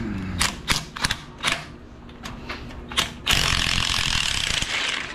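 Ratchet wrench clicking in separate strokes, then a fast, continuous rattle of ratcheting for the last couple of seconds, as an exhaust stud is backed out of a generator's engine.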